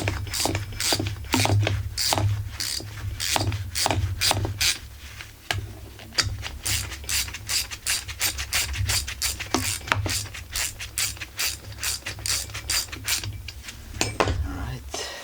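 Ratchet wrench clicking in quick, repeated strokes as screws are driven into a chainsaw's cylinder. The clicks ease off a little partway through.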